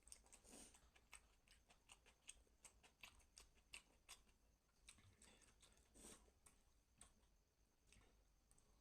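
Faint, close-miked eating sounds: many small wet clicks of chewing and mouth sounds, irregularly spaced. Two longer, fuller sounds come about half a second in and about six seconds in.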